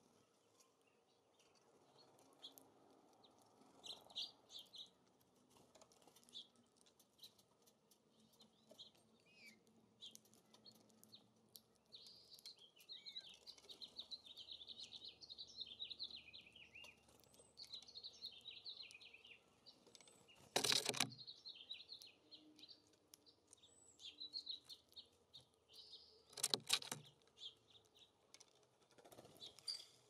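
Small songbirds at a feeder chirping, with a long, fast, jumbled warbling song partway through. Twice, about six seconds apart in the second half, there is a short, loud flurry of wingbeats close by.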